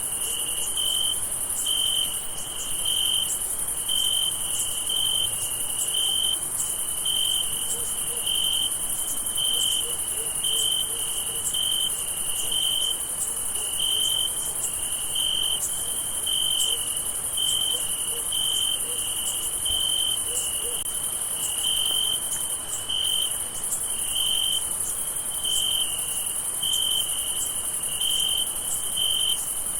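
Crickets singing at night: one chirps in an even beat, about three chirps every two seconds, over a steady high-pitched insect trill.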